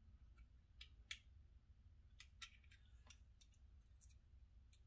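A dozen or so faint, irregular small clicks as screws on an FSC launcher's frame are snugged up by hand and its parts are handled.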